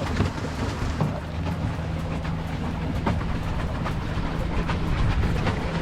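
Water bike being pedalled across a lake: water splashing and churning with knocks from the pedal drive, over a low steady hum.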